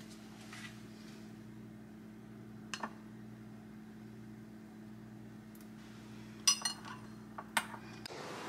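A few light clinks of tableware, the loudest about six and a half seconds in with a brief high ring, over a steady low hum that cuts off just before the end.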